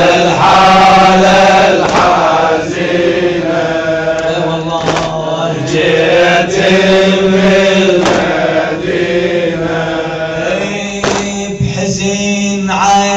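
Male crowd chanting a Shia mourning lament (latmiyya) together in held notes, with sharp chest-beating slaps every few seconds.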